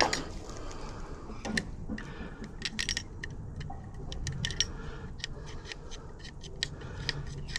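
Small metallic clicks and light rattles of a uPVC door gearbox latch mechanism being worked by hand, tested for smooth action after the repair.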